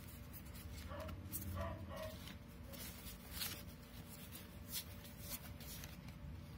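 Photocards and postcards being shuffled and laid into a cardboard box: light paper rustles and a few sharp taps over a steady low hum.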